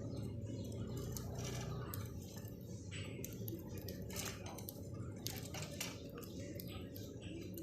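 Budgies moving about in their cage: scattered small clicks and taps, several a second at times, over a low steady hum.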